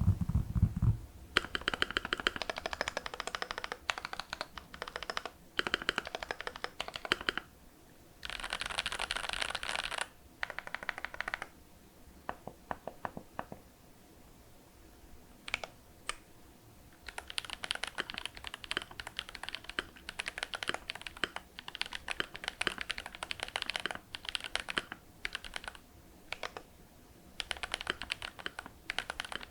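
Typing on a Glorious GMMK Pro mechanical keyboard with lubed Glorious Panda tactile switches, an aluminium plate and Akko keycaps: runs of quick keystrokes broken by short pauses, with only a few single key presses near the middle.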